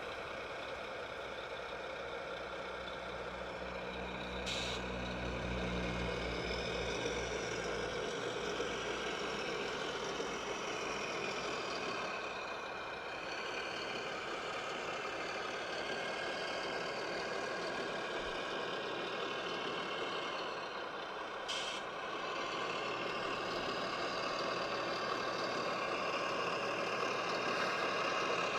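Radio-controlled construction machines running, electric motors and gears whining up and down in pitch over a steady engine-like drone. Two brief sharp hisses cut through, about four seconds in and again near 21 seconds.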